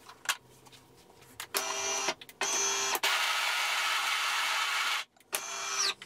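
DeLonghi Magnifica ESAM 4200 bean-to-cup machine grinding the coffee dose for a single shot with its built-in grinder. Two short motor bursts lead into a steady grind of about two seconds, which cuts off about five seconds in. A last short burst ends in a falling whine as the motor spins down.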